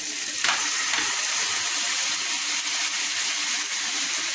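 Vinegar poured into a hot frying pan of shredded chicken, sizzling as it hits the oil. The steady hiss swells sharply about half a second in.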